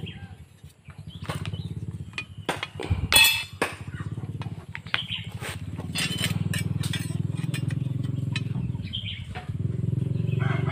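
Steel sickle blades clinking and knocking as they are handled, with the loudest metallic clatter about three seconds in. Under them runs a steady low motor hum that grows louder about six seconds in and again near the end.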